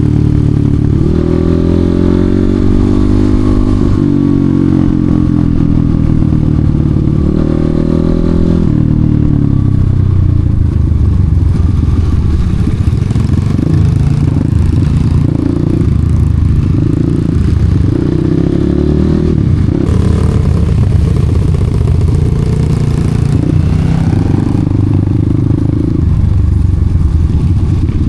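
Off-road enduro motorcycle engine running under load, its revs rising and falling over and over as it is ridden, with clattering.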